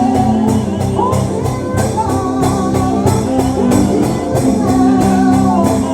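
Live gospel singing in church: a singer's voice over a band's sustained chords and a steady percussion beat.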